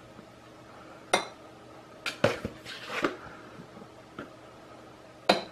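A metal spoon knocking and scraping against a small ceramic measuring cup and a plastic tub while flour is scooped: about six separate clinks and knocks, the last one sharp, near the end.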